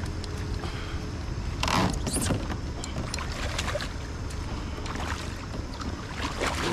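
Hooked fish splashing at the surface beside a kayak as it is landed with a net, the loudest splash about two seconds in.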